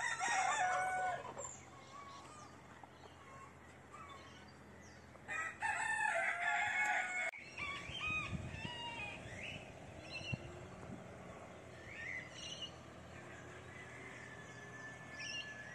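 Rooster crowing twice: one crow right at the start and another about five seconds in, each lasting roughly a second and a half to two seconds.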